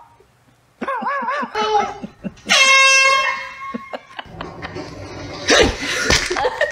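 Handheld air horn blasting once, a loud single steady tone lasting about a second and a half, some two and a half seconds in. Just before it a wavering voice rises and falls.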